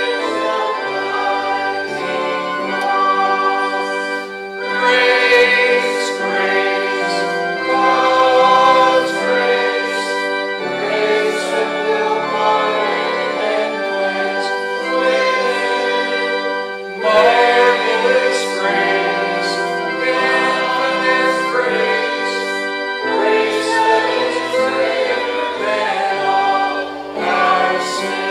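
Church congregation singing a hymn together with organ accompaniment, in long held phrases.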